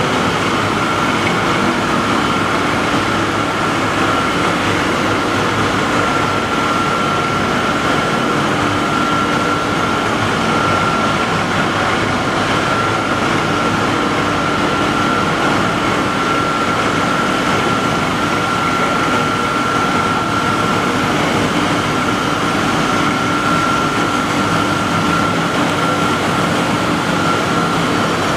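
Pyrolysis plant machinery running: a steady, loud mechanical noise with a constant high whine over it.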